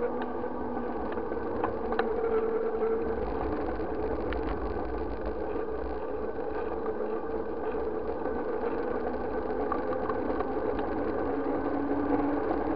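Motorcycle engine running steadily while riding, over a low rumble of road and wind noise, with a few faint clicks.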